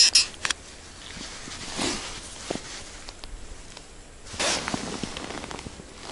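Gloved hands handling an ice-fishing rod, reel and tackle box. There is a fast run of sharp clicks right at the start, then quiet rustling, with a louder scuff about four and a half seconds in.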